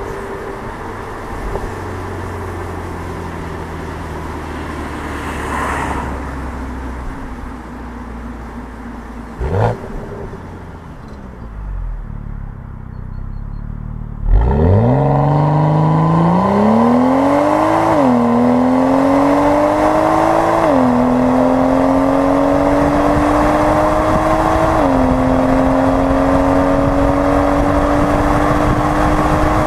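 Stock exhaust of a BMW 335i's twin-turbo straight-six, heard at the tailpipe. In the first half the car rolls to a stop with the engine low and quiet, with one short rev. About halfway in comes a full-throttle launch: the engine note climbs steadily and drops sharply at each of four upshifts.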